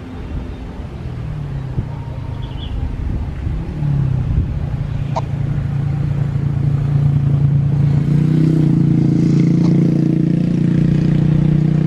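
Motorcycle and car engines passing close by on the road, a steady low engine hum that builds from about four seconds in and grows louder from about eight seconds in.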